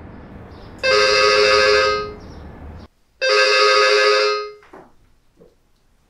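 Intercom call ringing: two ring tones of about a second each, a little over two seconds apart. A steady background hum stops suddenly just before the second ring.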